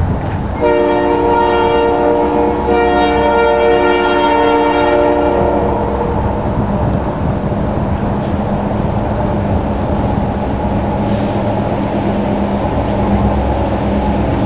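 Diesel locomotive horn of an EMD SD45/SD40-2 lashup sounding two long blasts over the first five seconds or so, then the steady rumble of the approaching locomotives.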